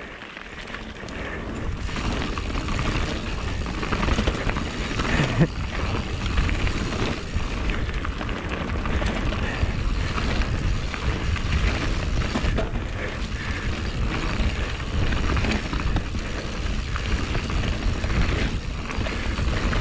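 Canyon Spectral full-suspension mountain bike riding down a dirt forest trail: a steady, uneven rumble of tyres on dirt and wind on the on-bike microphone, with small clatters from the bike over roots and stones.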